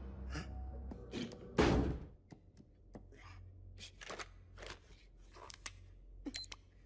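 Cartoon sound effects: a loud thump about one and a half seconds in, followed by a run of soft taps and scuffs, and a brief high electronic chirp near the end.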